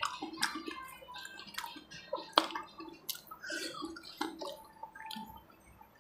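Close-miked wet mouth sounds of eating: lip smacks, tongue clicks and finger-licking, coming as a quick run of short clicks and smacks, the loudest about two and a half seconds in.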